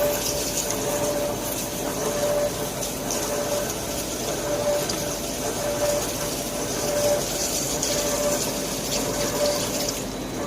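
Heavy-duty CNC lathe turning metal: a steady rush of cutting noise and flowing coolant, with a short mid-pitched tone recurring about once a second.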